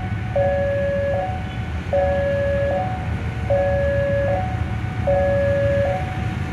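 Electronic railway level-crossing warning alarm sounding a two-tone high-low chime, each tone held about 0.8 s and alternating continuously, signalling that a train is approaching the crossing. A steady low rumble runs underneath.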